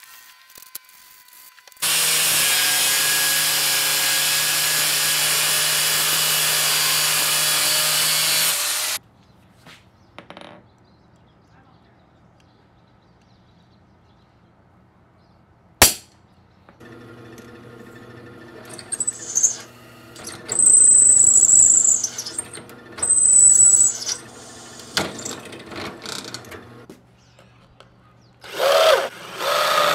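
A power tool runs steadily and loudly for about seven seconds, then stops. Later a hammer strikes a center punch once on the steel knife blank, and a cordless drill then bores into the steel in starts and stops, with a high squeal from the bit, and a last loud burst near the end.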